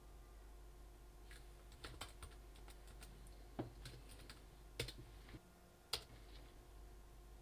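Laptop keyboard typing: soft, irregular keystrokes, with a few sharper key taps in the second half.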